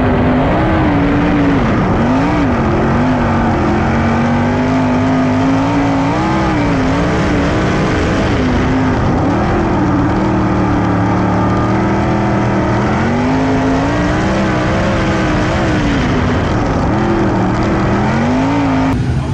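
Sprint car engines running hard in a race on a dirt oval. The loudest engine's pitch rises and falls over and over, with more engine noise underneath.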